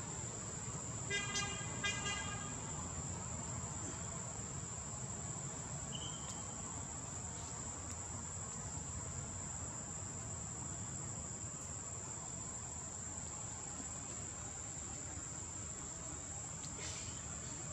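Insects droning with a steady high-pitched tone over a low rumble of forest ambience. Two short flat toots come about one and two seconds in.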